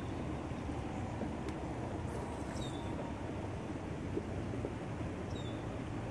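Steady low outdoor noise throughout, with a bird's short falling chirp repeated three times, about every two and a half seconds. A faint swish about two seconds in as a spinning rod is cast.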